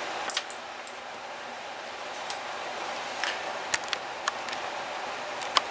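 A few light, scattered clicks and taps as small steel ball bearings and an Allen key are handled and set down on a paper towel, over a steady faint hiss.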